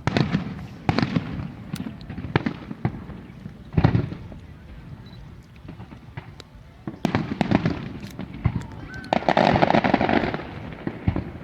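Fireworks show: aerial shells going off in an irregular series of sharp bangs and crackles, with a denser, louder stretch of bursts about nine seconds in.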